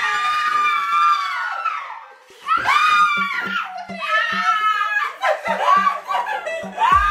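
A group of people screaming and shrieking with excitement, mixed with laughter: one long high-pitched scream over the first two seconds, then a run of shorter shrieks.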